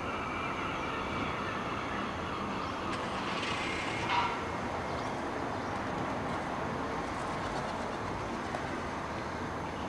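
Steady distant rumble of outdoor urban background noise, with a brief louder swell about four seconds in.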